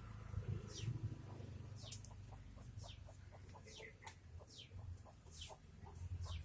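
Chickens calling faintly: a quick run of short, low clucks several times a second, with a high, falling chirp about once a second.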